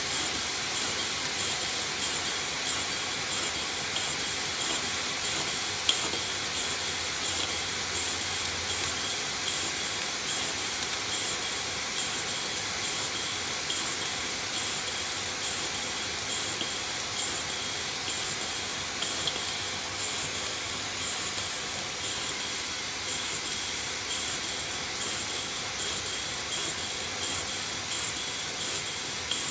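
Steady hiss of steam from a small live-steam model boiler and table engine under pressure, easing slightly toward the end, with a single click about six seconds in.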